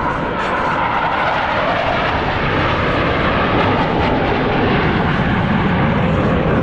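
Blue Angels F/A-18 Super Hornet jets flying past, loud, their pitch falling as they go by.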